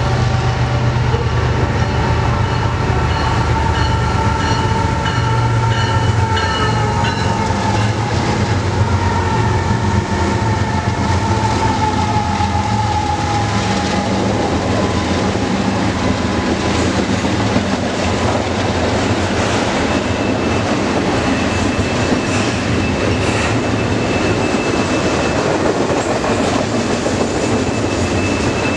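A BNSF freight train passing at close range. In the first half the diesel locomotives' engines run with a deep rumble and a high whine that drops in pitch as they go by. After that the double-stack cars roll past with a steady rush of wheels on rail, and a thin, steady wheel squeal joins about two-thirds in.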